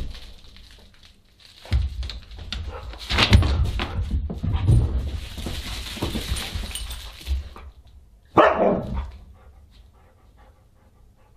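Siberian husky playing roughly with plush toys, with thuds and rustling as it shakes and tosses them on the rug. Near the end it gives one short, loud vocal call.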